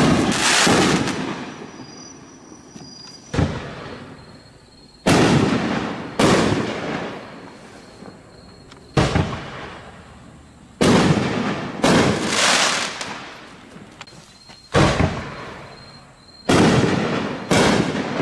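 Consumer 1.75-inch double-break artillery shells (Sunwing 'Invasion Begins') fired one after another: sharp bangs, often in pairs about a second apart, each trailing off in a long fading tail.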